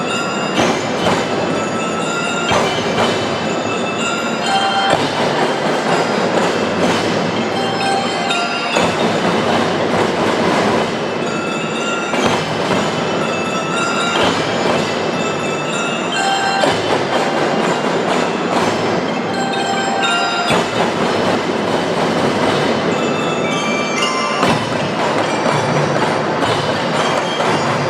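Marching drum band playing without a break: dense drumming, with a bell-lyre (glockenspiel) melody of short ringing notes over it.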